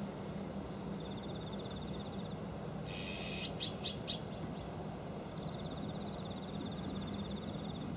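Azure-winged magpie giving a short burst of harsh, raspy calls about three seconds in, three sharp notes in quick succession. A thin, buzzing high trill sounds before and after, over a steady low hum.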